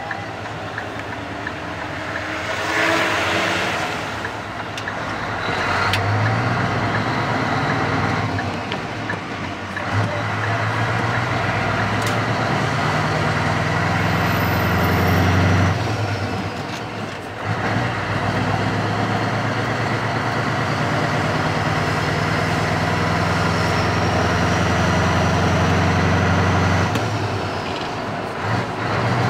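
Scania R500 V8 diesel engine heard inside the cab, pulling the truck up through the gears. The engine note drops out briefly at each gear change, three times, then comes back stronger. A faint high whistle rises with the revs between shifts.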